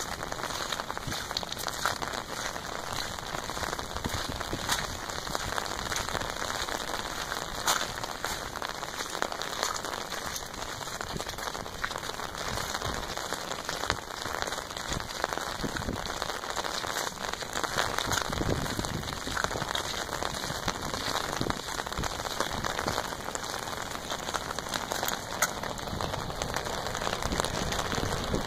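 Steady rain, with many single drops tapping sharply close by.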